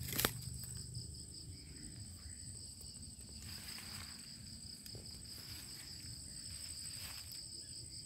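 Crickets trilling steadily at night, two high-pitched songs overlapping, one of them rapidly pulsing. A brief scuff sounds right at the start.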